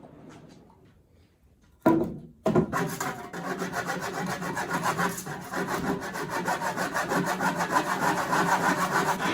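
A sharp knock about two seconds in, then a saw cutting through a wooden board with quick, even back-and-forth strokes.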